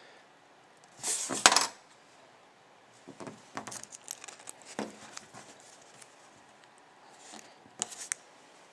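Small metal clinks, scrapes and clicks as lock picks and a Chubb steel padlock are handled, with a louder clatter about a second in and scattered clicks after it.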